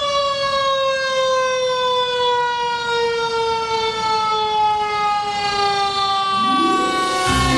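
Fire engine siren sounding one long wail whose pitch slides slowly and steadily down through the whole stretch.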